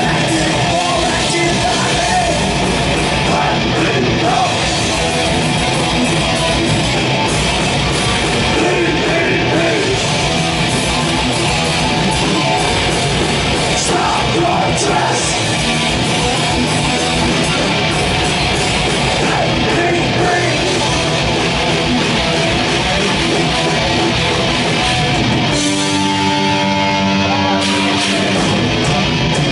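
Live thrash metal band playing loud, with distorted electric guitars and drums. About 26 seconds in the drums drop out and a held guitar chord rings on its own.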